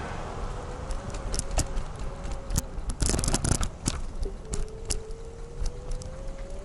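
Bird rental electric scooter being ridden over pavement: a thin motor whine that slowly rises in pitch as it speeds up, over steady road rumble and rattling clicks, with a burst of sharp rattles about three seconds in.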